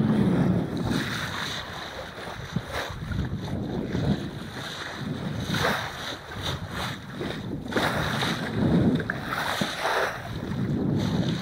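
Water rushing and splashing along a Gulfstar sailboat's hull as it sails through chop, coming in uneven surges, with wind buffeting the microphone.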